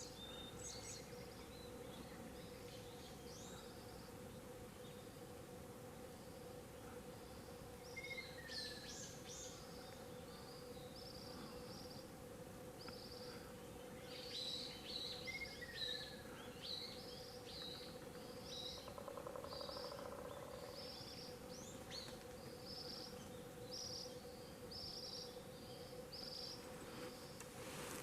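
Ruddy kingfisher calling twice, about 8 and 16 seconds in, each a short falling call. Under it runs a steady hum, and in the second half short high chirps from other birds repeat about once a second and are the loudest sound.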